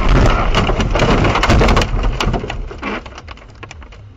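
A car crashing off the road into trees: a loud, rough rush of crashing and scraping against the body with many sharp cracks, dying down after about three seconds.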